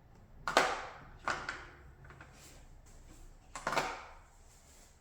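A few sharp clacks of metal hand tools being dropped and set into a mechanics tool set's case, three main knocks with short ringing.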